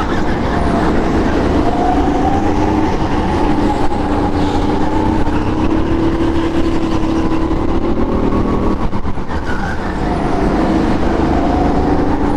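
Sodi rental go-kart engine heard onboard during a fast lap. Its pitch rises as the kart accelerates and falls when the driver lifts for corners, several times over.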